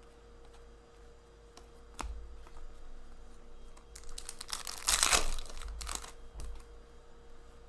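Hockey trading cards being handled and flipped through by hand: scattered light clicks and slides of card stock, with a louder crinkling rustle about four to six seconds in.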